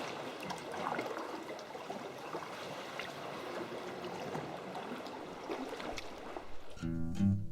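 Sea water sloshing and trickling around a sea kayak, with small splashes from the paddle. Acoustic guitar music comes in near the end.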